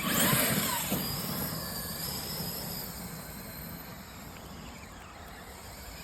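A vehicle's motor starts suddenly with a high whine, falling in pitch over the first second, then runs on more steadily and slowly fades.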